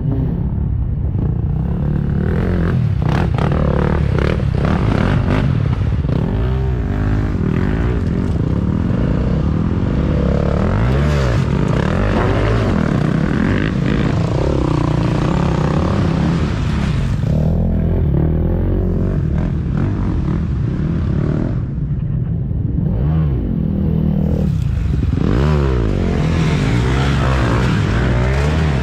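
Several off-road dirt bike engines revving hard, rising and falling in pitch over and over as the bikes are ridden through deep mud.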